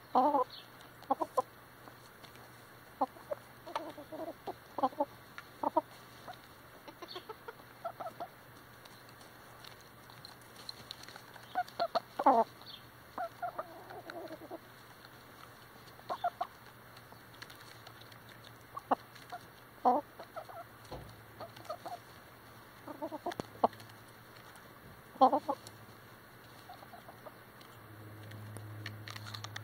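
Chickens clucking in short, scattered calls while pecking seed from bare dirt, with quick sharp taps of beaks striking the ground.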